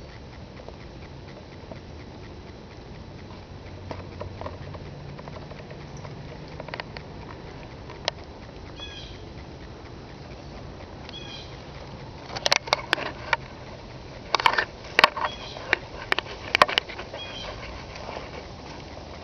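Outdoor background hiss with a low hum, a few short high chirps, and then a run of loud, sharp crackling clicks partway through, clustered over about five seconds.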